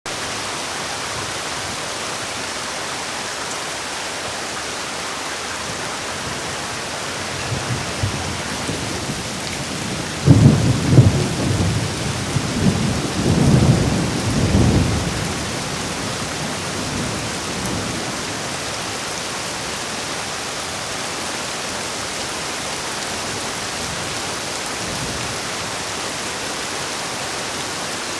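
Heavy rain falling steadily, with a roll of thunder about ten seconds in that rumbles low in several swells for around five seconds before fading back under the rain.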